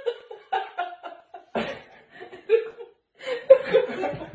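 A woman and a man laughing in short, broken bursts, with the laughter growing fuller near the end.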